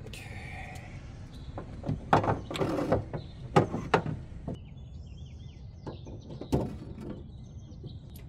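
Steel hitch mounting bracket being slid into the car's rear frame rail, giving a scrape and several sharp metal knocks about two to four seconds in and another knock later. Small birds chirp in the background.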